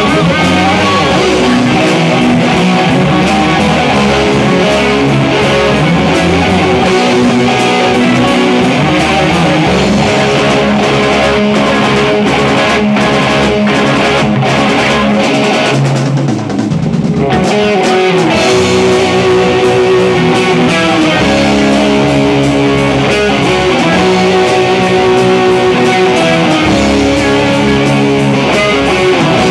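Guitar-led music with drums, loud and continuous, with a brief drop about halfway through.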